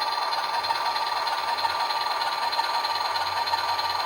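HO-scale Roco shark-nose model diesel locomotive running slowly on the track: an MRC DCC sound decoder plays diesel engine sound through the small speaker in the shell, over a steady whine from its cheap three-pole motors and gears. The motors cog a little at this low speed.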